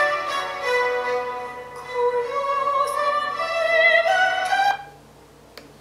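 Music played from iTunes through a 2008 MacBook Pro's built-in speakers: a melody of long held notes that slide from one pitch to the next. It cuts off abruptly about five seconds in.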